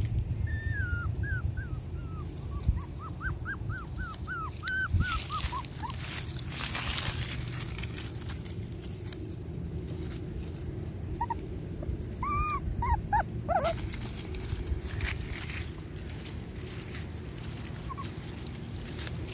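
Pomeranian puppies, about six weeks old, whimpering and yipping in short, high-pitched whines: a quick run of them in the first several seconds and another burst about twelve seconds in. Scattered rustles and a steady low rumble run underneath.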